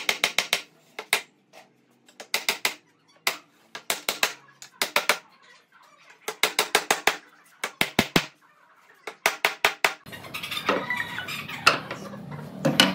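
An animal's rapid clicking calls, in short bursts of about half a second repeated several times. From about ten seconds in, background music comes in.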